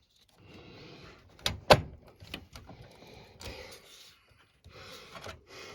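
Metal PCIe expansion slot brackets being worked out of the back of a PC case: scraping and rattling, with two sharp knocks about a second and a half in.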